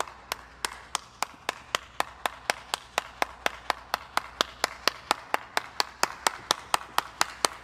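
A single person clapping alone at a steady pace, about three to four claps a second.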